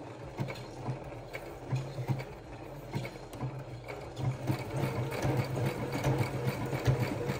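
Computerized sewing machine stitching a buttonhole with a one-step automatic buttonhole foot, running steadily with rapid stitch ticks throughout.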